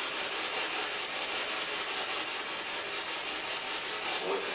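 Spirit box static: a steady rushing hiss of radio noise as the device sweeps through stations.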